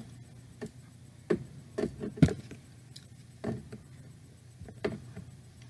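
Scattered light clicks, taps and rubs of hands picking at a laptop to fish out a fallen strand of wire, a dozen or so short separate sounds with brief quiet between them.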